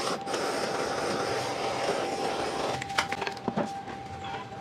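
Gas torch flame hissing steadily on a steel frame, cutting off about three seconds in. Then a few sharp knocks and clicks as metal parts are handled and set down on the bench.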